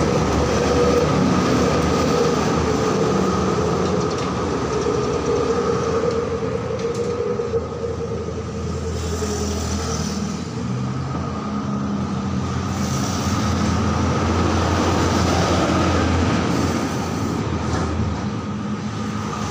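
Steady mechanical rumble with a constant high hum, swelling and easing slightly in loudness.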